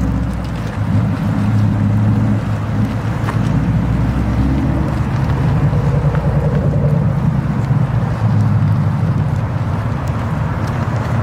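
Ford Mustang GT's 5.0-litre V8 exhaust at low revs as the car pulls away and drives off, a steady low note with no hard revving.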